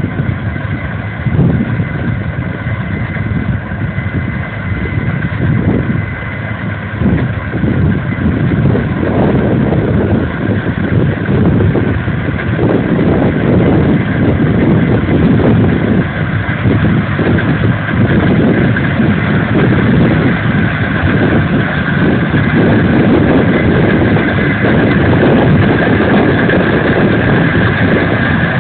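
Case IH 8120 combine harvester running while harvesting: a steady engine and machinery drone with a high whine over it, growing gradually louder as the machine comes closer.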